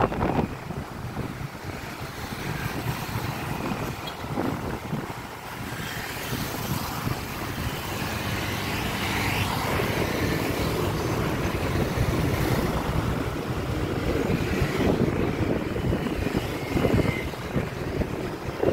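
City street traffic: motorbikes and cars running past in a continuous wash of engine and tyre noise that swells and fades as vehicles go by.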